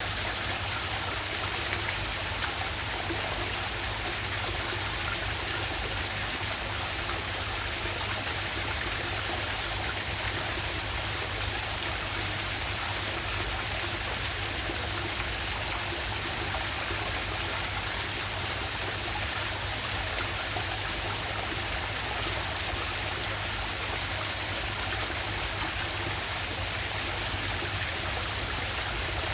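A waterfall's water rushing and splashing steadily, without a break.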